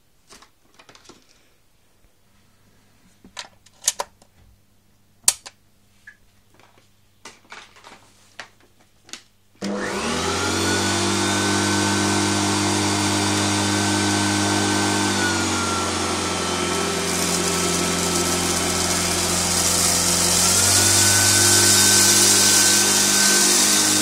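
Scattered clicks and knocks as the Hoover Turbopower 2 upright vacuum cleaner is handled, then its motor switches on abruptly about ten seconds in and runs steadily with a high whine. The whine's pitch drops slightly partway through and rises again near the end, with a harsher hiss for a few seconds as it is worked over the carpet.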